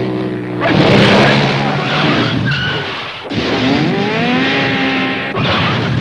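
Cartoon motorbike sound effects: a skidding rush of noise, then the engine revving with a pitch that rises for about two seconds.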